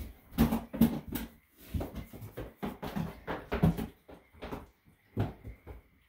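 Baby goats' hooves knocking and clattering on a hollow plastic pet carrier as they jump and scramble on it: irregular knocks, loudest in the first second and again about three and a half seconds in.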